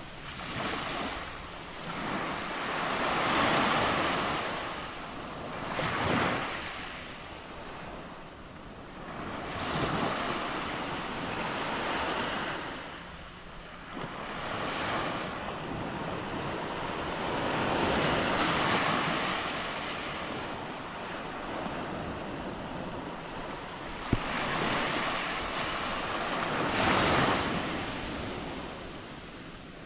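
Small surf breaking and washing up a sandy Gulf of Mexico beach, swelling and fading every few seconds. One brief click about two-thirds of the way through.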